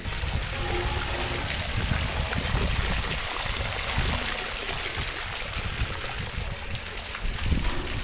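Water pouring from a pipe into a masonry cattle water trough, splashing steadily as the trough is filled with fresh water.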